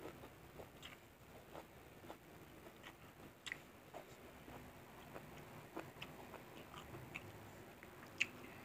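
Faint sounds of a person eating by hand and chewing with the mouth closed, with scattered small clicks at irregular intervals and one sharper click near the end.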